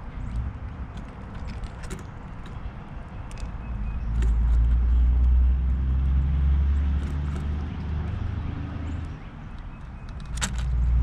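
A motor vehicle's engine running nearby, a low rumble that swells up about four seconds in, eases off and comes back near the end. Scattered light clicks and a few brief high chirps sound over it.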